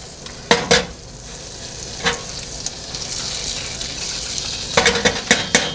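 Butter sizzling as it melts in a hot pan, the hiss growing a little louder, with a few sharp knocks of a utensil on the pan: a pair about half a second in, one about two seconds in, and several in quick succession near the end.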